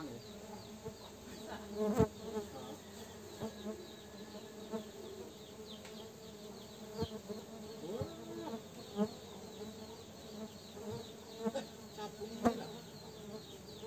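Tetragonula biroi stingless bees buzzing around their wooden hive box, a steady hum with a few sharp clicks, the loudest about two seconds in and near the end.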